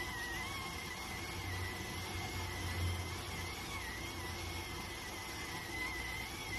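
Electric rice cooker's steam whistle sounding steadily, a thin high whistle that wavers slightly in pitch over a constant hiss of steam and a low hum, while the rice cooks.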